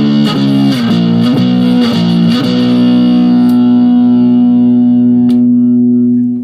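Electric guitar played through a SubZero SNOWSTORM mini distortion pedal set to normal mode, on the neck pickup. A few quick chord changes, then one chord is left ringing for several seconds and cut off sharply near the end.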